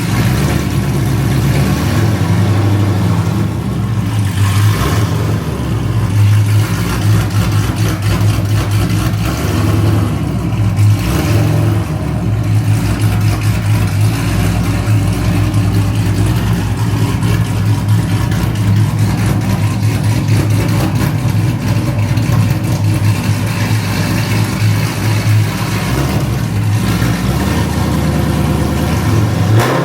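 Chevrolet Corvette Z06's V8 idling steadily, warming up after a cold start.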